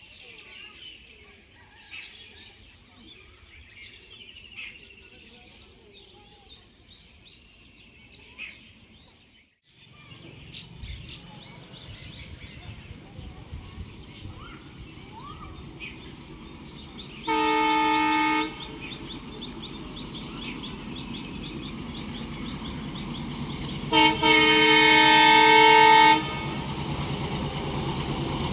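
Diesel locomotive air horn from an approaching ALCO WDM-3D: one blast about a second long, then a short toot followed by a longer blast of about two seconds. Under it the locomotive's engine and rail rumble grow steadily louder as it nears. Birds chirp for the first several seconds.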